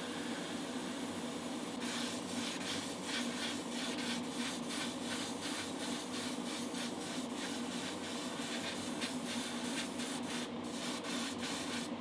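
Airbrush spraying paint with a steady hiss over a low hum. About two seconds in, the spray turns into quick short bursts, a few a second, as the trigger is worked.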